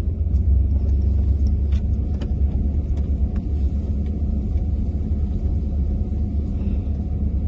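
Vehicle engine and tyres making a steady, deep rumble while driving slowly over a grassy dirt track, heard from inside the vehicle, with occasional light clicks and knocks from the bumpy ride.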